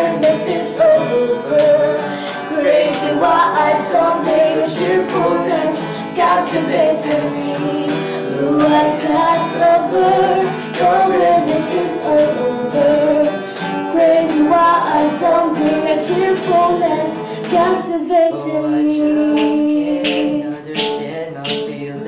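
A slow pop ballad: a woman singing over guitar. Near the end the backing thins to a held low note, and a sharp clicking beat stands out.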